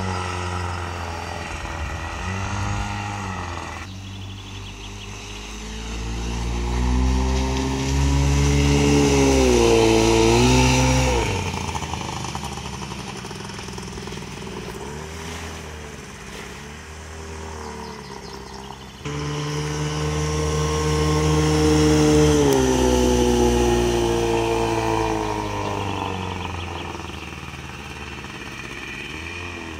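Small motorboat's outboard motor running at speed, its pitch rising and falling as the boat turns and changes throttle. It grows louder as the boat passes close, once about a quarter of the way in and again just after the middle.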